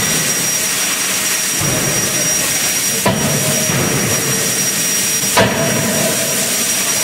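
Anyang C92K-series 31.5 kJ CNC fully hydraulic close die forging hammer working a hot workpiece. The ram strikes the die twice, about three seconds in and again two seconds later, over a steady loud hiss.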